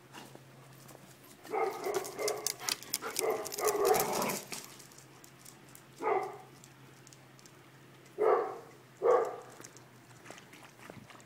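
Dog barking: a quick run of barks with sharp clicks mixed in during the first few seconds, then single barks about six, eight and nine seconds in.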